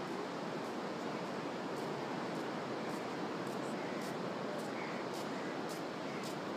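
Steady hiss of surf breaking on a sandy beach, with faint short chirps now and then.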